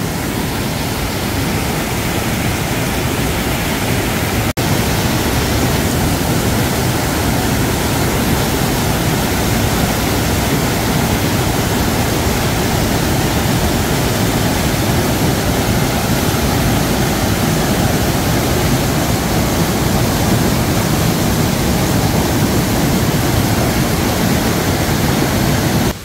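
Small waterfall on a fast mountain stream pouring over boulders into a pool: a loud, steady rush of falling and churning water. It drops out for an instant about four and a half seconds in.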